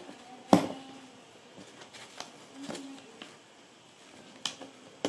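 Handling noise from hands working inside a suitcase's fabric lining at the handle mount: a few sharp knocks and clicks, the loudest about half a second in and another near the end.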